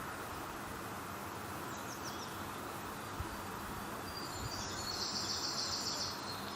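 Steady background hiss, with a few faint high bird chirps about two seconds in and a high, rapid bird trill from about four and a half to six seconds.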